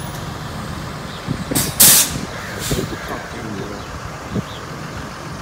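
A road vehicle runs with a steady low rumble. A loud, short hiss comes about one and a half seconds in, and a fainter one about a second later.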